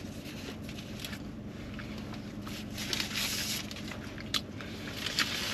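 A sheet of paper being handled and unfolded, crinkling and rustling, loudest around the middle, with a few sharp clicks near the end, over a faint steady hum.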